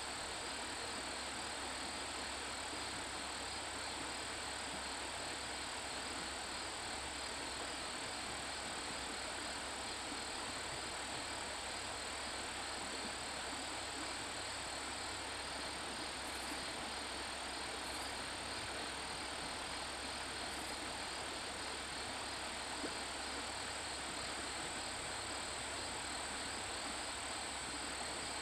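Steady high-pitched insect drone, like crickets, over an even outdoor hiss, with a few faint ticks midway.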